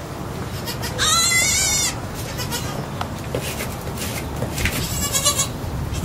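Newborn lamb bleating: one loud, high, quavering bleat about a second in, lasting nearly a second, and a shorter, fainter one near the end, over a steady low background noise.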